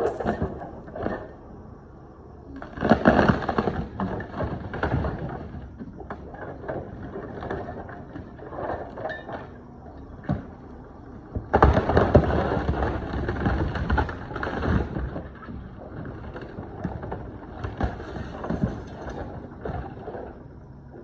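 A wooden tool shed being torn down by a mini excavator: boards cracking, splintering and crashing, in two loud spells about three seconds in and again about twelve seconds in, with scattered sharp cracks between.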